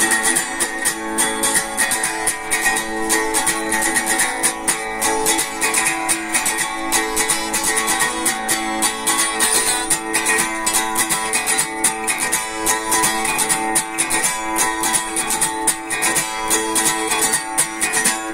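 A guitar strummed rapidly and steadily, chords ringing under fast, even strokes.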